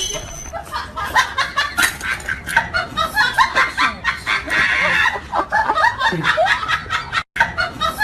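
Laughter: rapid, repeated snickering and chuckling bursts, with a brief cut to silence about seven seconds in.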